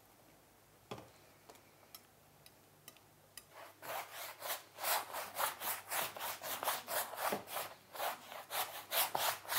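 A paint-loaded rag scrubbed across a stretched canvas in quick back-and-forth strokes, about three a second, starting about three and a half seconds in after a few faint clicks. It is laying down a rough first layer of colour.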